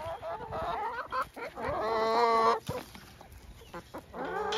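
A flock of chickens clucking and calling: a run of short clucks, then a long drawn-out call about two seconds in and another starting near the end.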